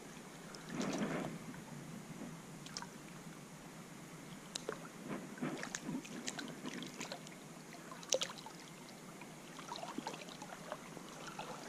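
Faint lapping and trickling of water, with scattered small splashes and clicks and a slightly louder splash or rustle about a second in.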